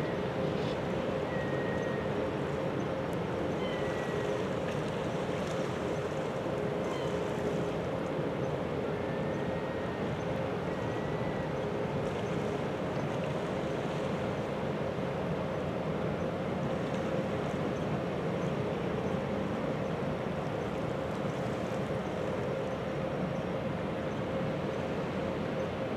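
Steady low drone of a container ship's engines and machinery as it manoeuvres, with a steady hum running through it.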